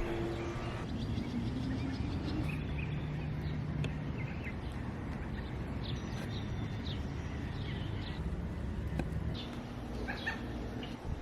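Birds chirping in short scattered calls over a low steady hum.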